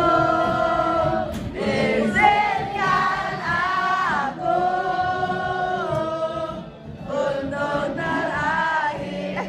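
A group of voices singing an Indonesian song together, holding long notes with short breaks between phrases.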